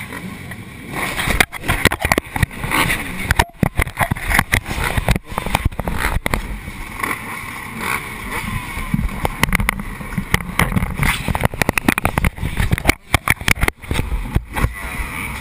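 Motocross bike engines running, heard through a GoPro mounted on the bike, with irregular crackling and knocks throughout.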